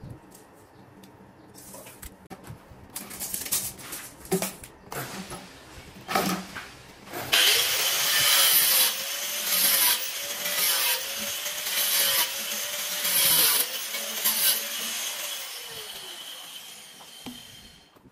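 Handheld angle grinder with a cutting disc slicing through a PVC drain pipe. It starts about seven seconds in, runs loud and hissing for about eight seconds, then fades out as it spins down. Before it come a few scattered knocks of handling.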